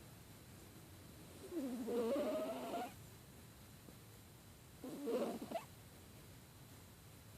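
A pet snoring twice while it sleeps with a cold, its breaths wavering in pitch through a stuffy nose: a longer snore about one and a half seconds in and a shorter one about five seconds in.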